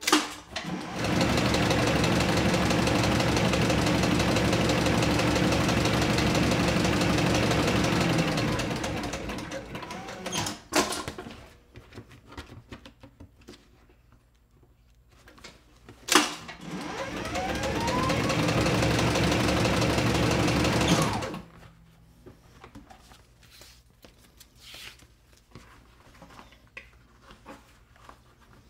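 Sewing machine stitching leather in two long, steady runs, the first slowing to a stop and the second ending abruptly. Between the runs come a few sharp clicks.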